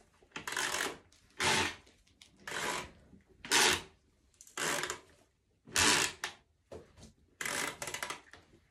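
Toy lawn mower's pull-start cord pulled again and again, about seven short rattling zips roughly a second apart.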